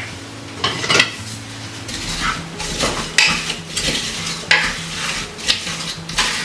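Wooden spoon stirring sliced carrots in a slow cooker crock, scraping and knocking against the sides in irregular strokes every half second or so.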